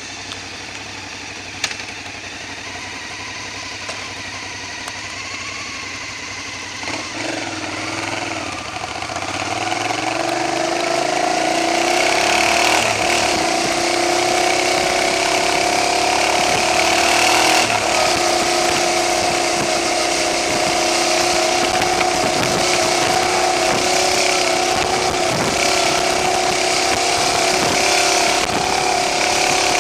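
Motorcycle engine pulling away at low revs, then accelerating through about the first ten seconds and running at a steady cruise, with a loud rushing noise building as speed rises. The camera's audio is set too loud, so the sound is harsh.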